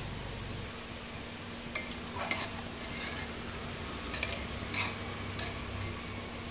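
Metal spoon stirring chicken pieces in spice stock inside an aluminium pressure cooker, clinking and scraping against the pot's side several times from about two seconds in, over a steady low hiss.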